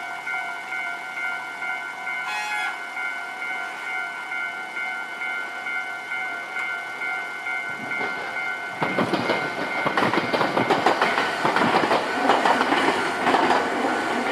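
Japanese level-crossing warning bell ringing steadily. About nine seconds in, a train passes over the crossing, its wheels clattering loudly over the rail joints.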